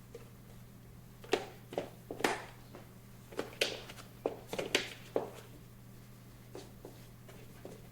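Handling noise of plastic enclosure parts being fitted together: a string of light knocks and clicks, bunched between about one and five seconds in, with a few fainter ones near the end, over a steady low hum.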